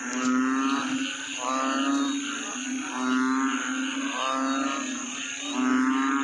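Frogs calling in wet mud: a low, moaning call just under a second long, repeated five times at about one-and-a-half-second intervals, over a steady high insect drone.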